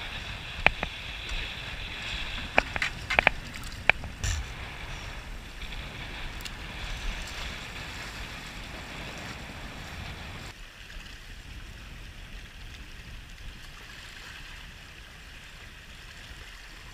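Wind on the microphone and water washing against a rock jetty, a steady rushing noise, with a few sharp clicks in the first four seconds. The noise drops a little about ten and a half seconds in.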